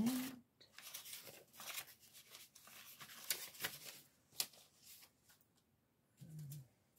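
Paper scraps rustling and shuffling as a hand sorts through a box of papers, a run of short crisp rustles that dies away about five seconds in.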